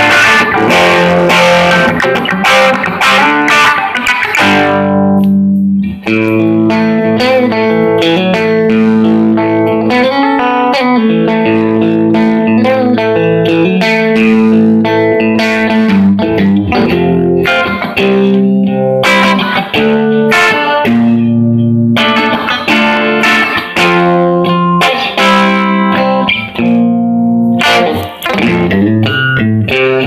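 Fender Stratocaster electric guitar played through a Marshall 5210 50-watt combo amp. Bright strummed chords ring for the first few seconds, then the guitar moves into a phrase of picked notes and chords.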